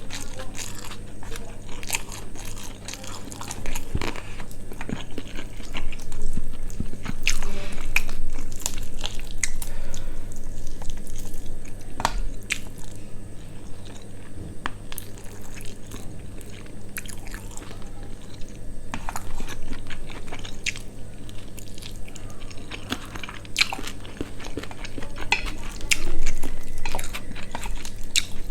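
Close-miked mouth sounds of a person eating spicy quail curry with rice and salad: steady chewing with irregular bites and crunches.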